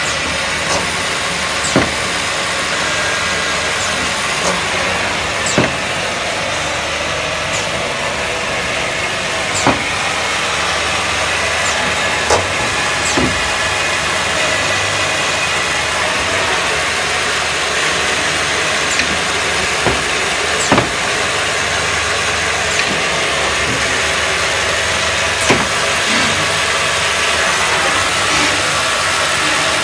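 Omaksan Holemaster 100 SL NC boring machine running with a steady mechanical whirr, broken by irregular sharp clicks and knocks every few seconds.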